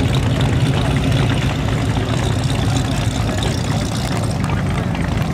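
Car engines running at low speed as show cars drive slowly past, a steady low engine drone.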